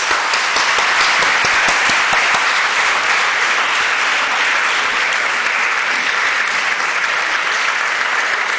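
Audience applauding, a steady dense clapping that holds throughout.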